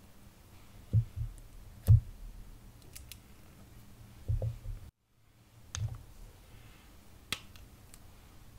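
Handling of metal lipstick tubes and lipstick bullets over a tray of slime: a few scattered soft thumps and sharp clicks, with a brief dead-silent gap about five seconds in.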